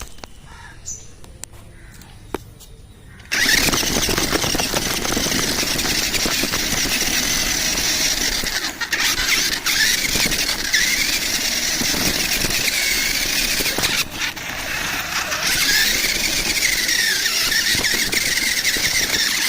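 Off-road rock crawler vehicle making a loud high-pitched squeal mixed with hiss. It starts suddenly about three seconds in and carries on, its pitch wavering up and down.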